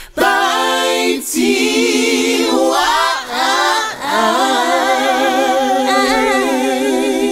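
A cappella outro jingle: voices singing in harmony without instruments, holding long wavering notes in several phrases with brief breaks between them.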